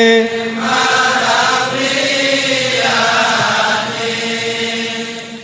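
Javanese Islamic devotional chanting (syi'ir): a held sung note ends just after the start, followed by a softer sustained choir-like backing that fades out near the end.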